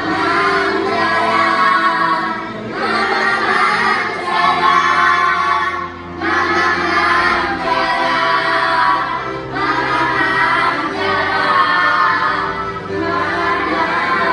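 A group of kindergarten children singing a song together in chorus over instrumental accompaniment, in phrases of about three seconds each.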